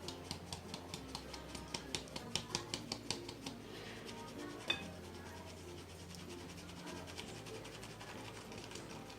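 Cake batter being stirred by hand in a bowl, the utensil clicking rhythmically against the bowl at about five strokes a second for the first three seconds or so. A single sharp knock comes near the middle, over background music.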